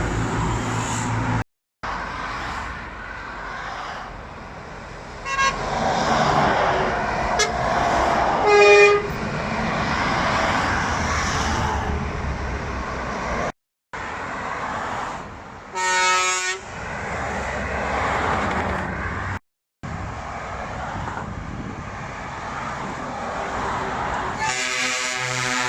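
Truck air horns blasting over passing road traffic: short honks about five, nine and sixteen seconds in, and a longer blast near the end.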